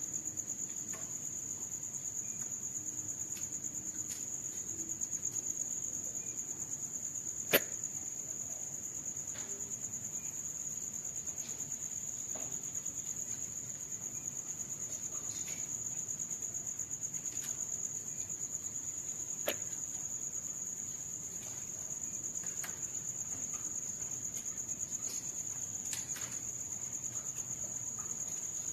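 A continuous high-pitched insect trill, with a sharp click about a quarter of the way in and another about two-thirds of the way in.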